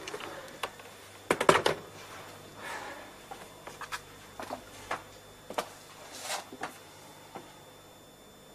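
Scattered knocks and clicks of a man moving about a small room and handling things, with a loud cluster of knocks about a second and a half in and lighter clicks after it.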